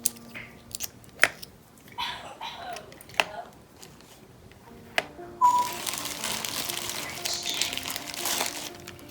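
Small glass mirror tiles clicking sharply as they are set down one by one on a board, then from about five and a half seconds in, about three seconds of crinkling.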